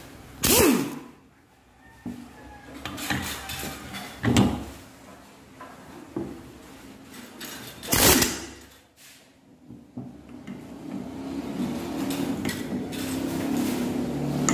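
Three short bursts of a power tool working the alternator pulley nut loose, the first dying away with a falling pitch. A vehicle engine running grows louder over the last few seconds.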